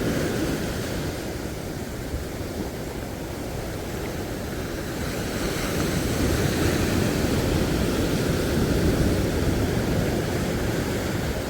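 Sea surf washing on the shore, with wind on the microphone: a steady rush that swells a little past the middle.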